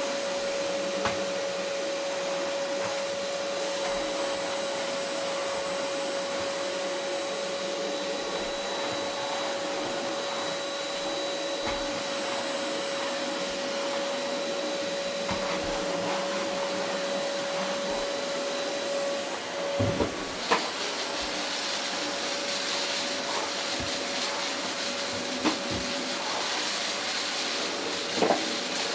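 Vacuum cleaner running steadily over a carpet, a constant motor whine with hiss. A few sharp knocks cut through it, the loudest a pair about two-thirds of the way in, after which the hiss turns brighter.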